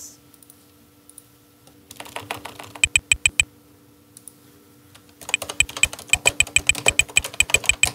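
Typing on a computer keyboard. There is a short run of key presses about two seconds in, a pause, then fast, steady typing from about five seconds in.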